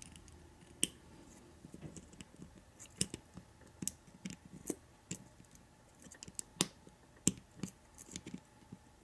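Master Lock Pro Series 6327 lock cylinder being taken apart by hand: small metal parts and tools giving irregular sharp clicks and taps, about a dozen, unevenly spaced.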